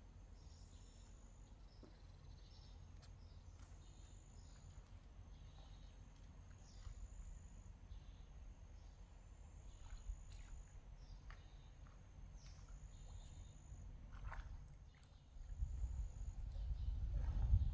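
Insects chirping: a short, high chirp repeats about once a second over a low rumble, which grows louder near the end.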